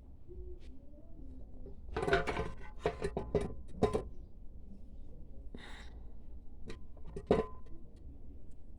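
Toyota CVT gearbox with a bad bearing being handled, giving metallic clunks and rattles. A cluster of knocks comes about two to four seconds in, then a short rustle, and near the end a single sharp knock that rings briefly.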